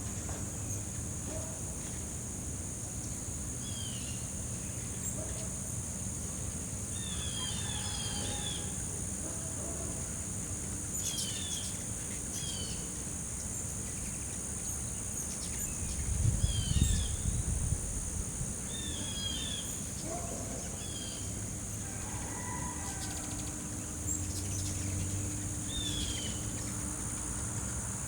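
A steady, high-pitched insect chorus, with short chirping bird calls breaking in every few seconds. A brief low rumble comes a little past halfway.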